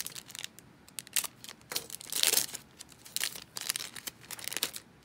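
Foil wrapper of a Topps Garbage Pail Kids Chrome trading-card pack being torn open and crinkled, a quick run of crackles loudest about two seconds in.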